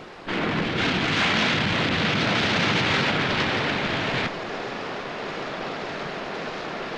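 Floodwater rushing down a river: a loud, steady rush of churning water that starts just after the beginning and drops suddenly to a quieter, steady rush a little over four seconds in.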